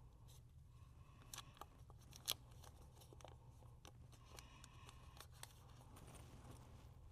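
Faint clicks and crinkles of small accessory packaging being handled during an unboxing, with one sharper click about two seconds in, over a low steady room hum.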